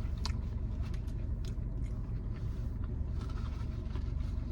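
Close-up chewing and biting into a hot dog with relish, with a few short crunchy clicks, over a steady low rumble.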